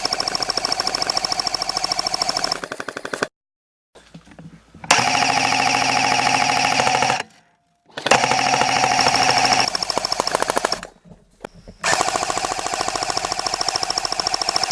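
Airsoft electric gun firing long full-auto bursts: a fast, even rattle over a steady whine. There are four bursts, with short pauses between them.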